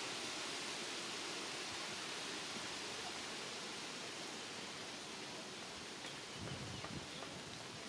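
Steady outdoor background hiss, with a few soft low rustling sounds about six seconds in.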